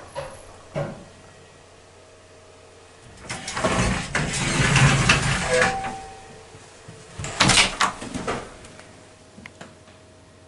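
The collapsible scissor gate of a home elevator slides open with a long metal rattle and a short squeak. A clatter of knocks follows as the swing landing door is unlatched and pushed open.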